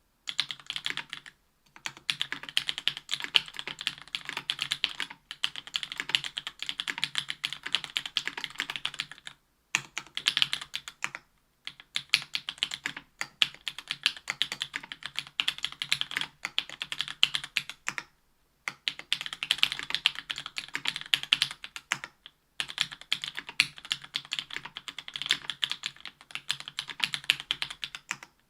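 Continuous typing on a Special Whale LinWorks mechanical keyboard with stock 62 g JWK Black linear switches, an aluminium plate, GMK keycaps and memory-foam dampening: a dense run of keystroke clacks, broken by short pauses every few seconds.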